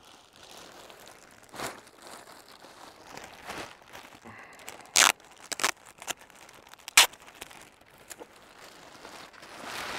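Parcel packaging rustling and crinkling as it is handled and items are pulled out, with a few sharp clicks, the loudest about halfway through and again two seconds later.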